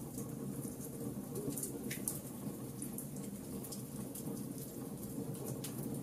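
Wood logs burning in a fireplace: irregular sharp crackles and pops, several a second, over a steady low rumble of the fire.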